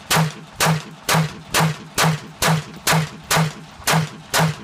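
Glock 17 Gen 1 9 mm pistol firing a steady string of single shots during a magazine dump, about two shots a second, ten in all.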